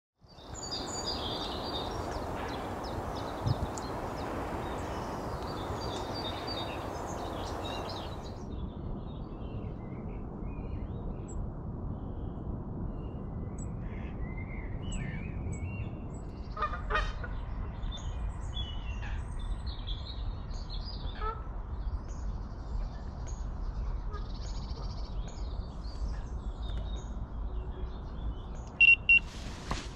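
Lakeside outdoor ambience with birds calling and chirping over a steady background hiss. Near the end a carp rod's electronic bite alarm starts beeping: a fish has taken the bait.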